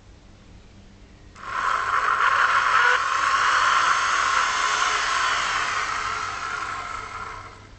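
2 kW vacuum cleaner motor switched on about a second and a half in, running with a loud rough rushing noise rather than a clean whine, the sign of its failed bearing. The sound dies away as the motor runs down near the end.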